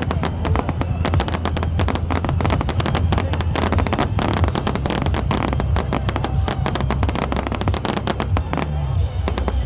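Fireworks crackling and popping in a dense, rapid run over a steady low rumble; the crackling stops near the end and music comes up.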